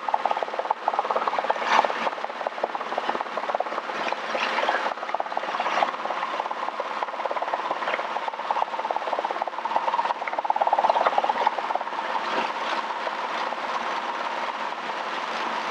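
Robinson R22 Beta II helicopter's four-cylinder Lycoming piston engine and rotors heard from inside the cockpit: a steady drone with a rapid fine flutter and no deep bass, on a low-power final approach to the landing pad.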